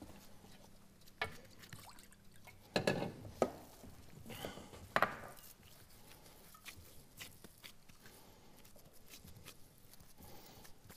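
Gloved hands working wet pumpkin kibbeh dough against a steel mixing bowl and a glass baking dish: scattered soft knocks, scrapes and pats. The louder ones come about three and five seconds in, and fainter taps follow.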